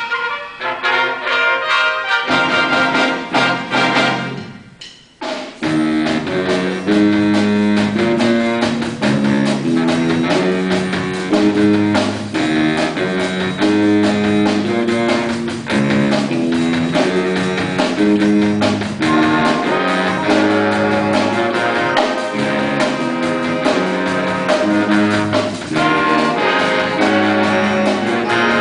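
A student big band plays a brass-led jazz chart, with trumpets, trombones and saxophones. The music thins and briefly drops away about five seconds in, then the full band comes back with a steady repeating riff in the low parts.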